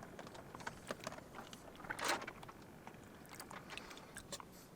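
Chewing a seedy cactus fruit (pitahaya) close up: a quick run of small crunchy clicks as the seeds are bitten, with a short breathy rustle about two seconds in.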